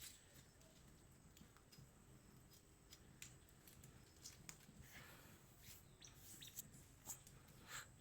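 Near silence: faint room tone with a few soft, scattered clicks, more of them in the second half.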